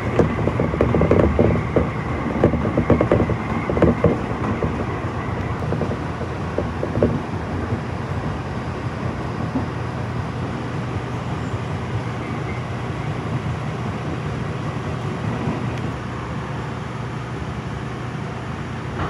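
Tobu 30000 series train heard from inside the car: wheels clacking over rail joints, the clacks thinning out over the first several seconds as the train slows, leaving a steady low running hum as it crawls toward a stop.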